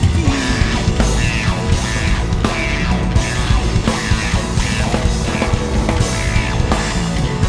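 Rock band playing live: electric guitar, electric bass and drum kit together, with drum hits on a steady beat.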